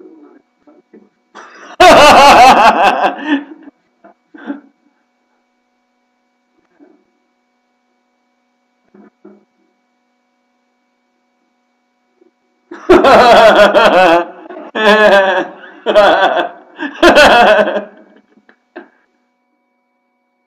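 A man laughing loudly without words: one burst about two seconds in, then several bursts in a row from about thirteen to eighteen seconds.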